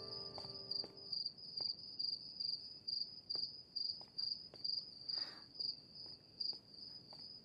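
Crickets chirping: a steady, high, pulsing trill of about three chirps a second. A held music chord fades out in the first second.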